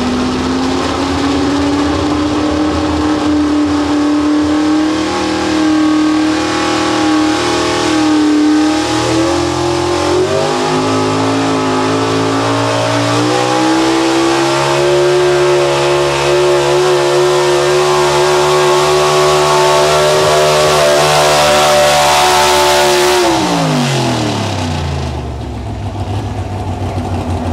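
Pro stock two-wheel-drive pulling truck, a 1950s Chevrolet pickup, running at high revs under full load as it drags a weight-transfer sled, the engine pitch climbing in steps through the pull. About 23 seconds in the revs fall away quickly as the throttle is lifted at the end of the pull, and the engine settles to a lower, quieter running.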